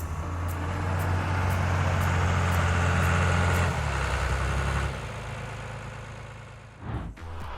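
Heavy machine's engine running with a steady low drone. It drops back after about four seconds and fades away by about five seconds in.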